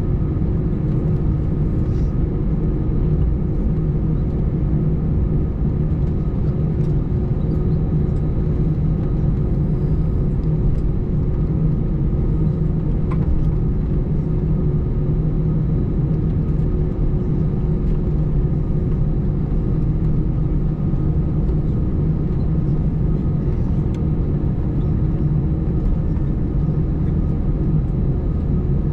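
Airbus A320 cabin noise while taxiing, its engines at idle thrust: a steady low drone with constant hum tones, not yet rising for the takeoff roll.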